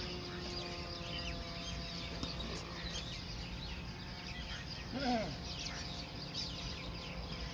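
Small birds chirping again and again in the surrounding trees, over a steady outdoor background hum, with one short, lower call about five seconds in.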